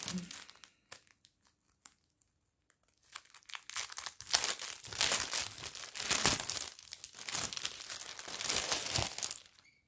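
Clear plastic packaging bag crinkling as it is opened and a printed cross-stitch canvas is pulled out of it: a few small ticks, then about six seconds of steady crinkling from about three seconds in.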